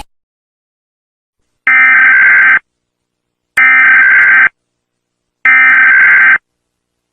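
Emergency Alert System SAME header: three loud, identical bursts of screechy digital data tones, each about a second long with a second of silence between them, starting about two seconds in. It is the coded header that opens an emergency alert broadcast.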